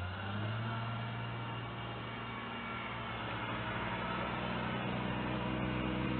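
Front-end loader's diesel engine running with a steady low drone over a constant hiss.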